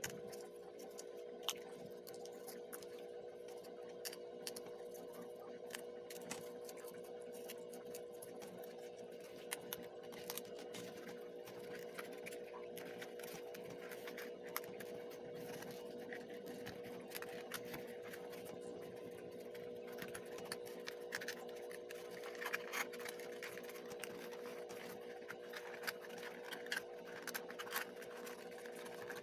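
Paperboard 3D puzzle pieces being handled and slotted together: scattered light clicks, taps and scrapes of stiff board, louder and more frequent near the end, over a steady low hum.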